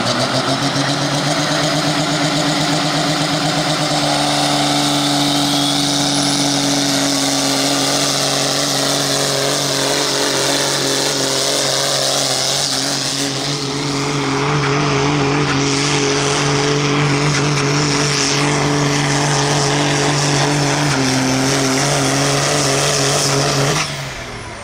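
The Cummins diesel engine of a Minneapolis-Moline G900 pulling tractor runs at full throttle under load, dragging a weight-transfer sled. The pitch rises in the first second, then holds steady and loud. Near the end the engine drops off suddenly as the pull finishes.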